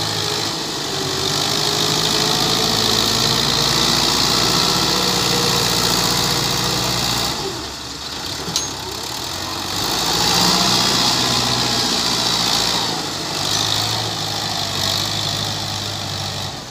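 Fiat 640 tractor's diesel engine running steadily as it pushes sand with a front blade, with the sound changing at a cut about halfway through and a single sharp click soon after.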